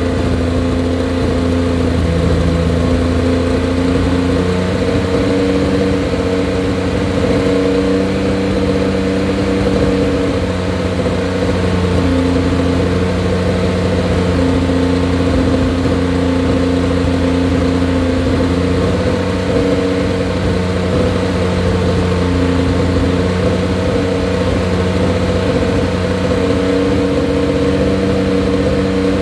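An engine running steadily with a deep hum, its pitch shifting slightly now and then.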